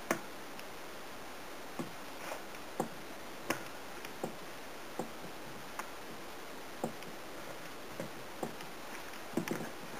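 Hands kneading pizza dough in a stainless steel mixing bowl: short knocks at uneven intervals, roughly one a second, as the dough and hands press against the steel bowl, over a steady faint hiss.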